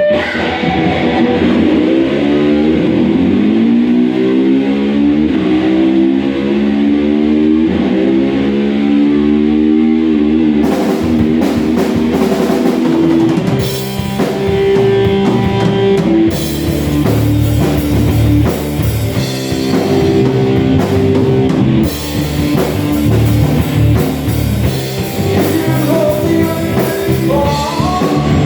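Rock band playing: electric guitar notes glide and waver in pitch at first, then the drum kit and full band come in about ten seconds in.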